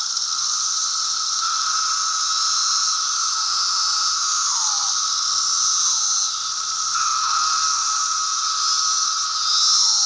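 A dense chorus of 17-year periodical cicadas (Brood II) singing: a loud, steady, droning whine, with individual calls slurring down in pitch every second or so.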